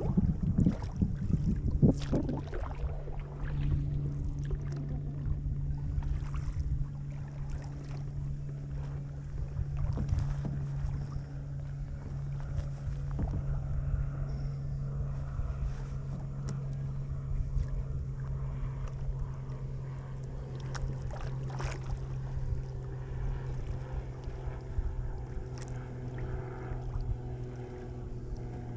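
Kayak paddling: paddle strokes and drips on the water with scattered light knocks, over wind rumbling on the microphone and a steady low hum.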